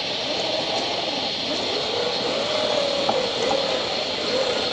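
Small brushed electric motor and geared drivetrain of an Axial SCX10ii 1:10 scale RC crawler whining as it crawls over rocks, the pitch rising and falling with throttle and load. A sharp click about three seconds in.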